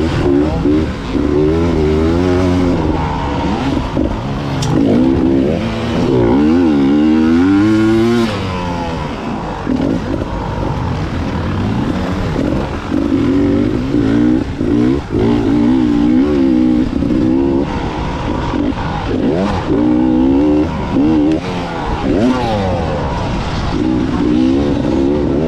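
Enduro motorcycle engines revving up and down over and over, the pitch rising and falling with quick throttle changes.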